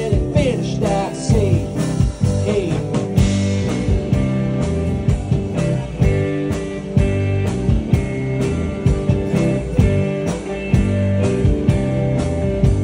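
Live band playing blues-rock on electric guitar, acoustic guitar, bass guitar and drums over a steady beat. A lead guitar bends notes up and down in the first few seconds.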